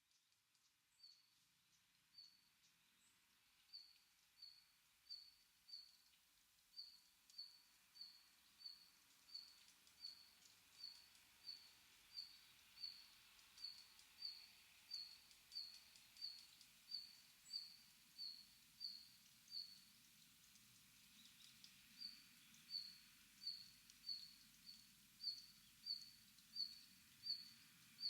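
A small bird calling one short, high note over and over, about one and a half times a second, with a brief pause partway through, over faint forest background.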